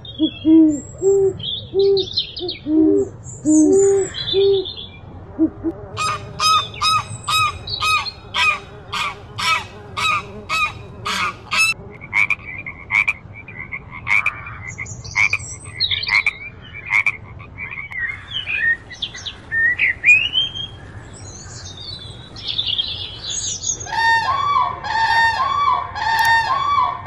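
A run of different animal calls. It opens with deep, repeated owl hoots. About six seconds in come rapid, evenly spaced frog calls, followed by chirping. Near the end a flock of birds is honking.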